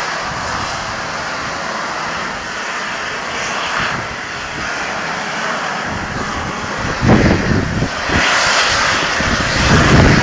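Peppercorn A1 Pacific steam locomotive 60163 Tornado hissing loudly as it vents steam clouds while moving off. From about seven seconds in, several louder, deeper blasts of exhaust break through the hiss.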